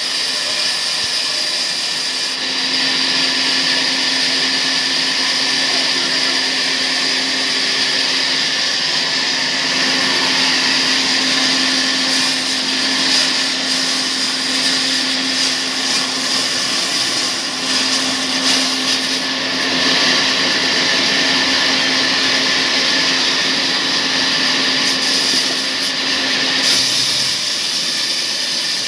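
Sawmill saw running steadily and cutting through palm tree wood. The cut runs from about two seconds in until about 27 seconds in, when the sound eases back to the saw running free.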